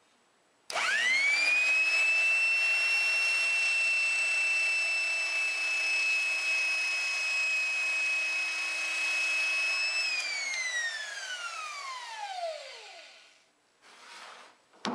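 1953 Porter-Cable worm-drive trim saw switched on, spinning up quickly to a steady high whine. It runs for about nine seconds, then is switched off and the whine falls away over about three seconds as it coasts to a stop. A few light handling knocks and a click come near the end.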